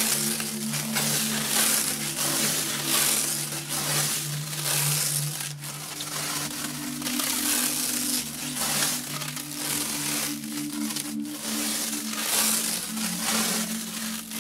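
Plastic stretch wrap being pulled off a hand-held dispenser roll and stretched around a machine: a continuous crackling and tearing of film that swells and eases with each pull.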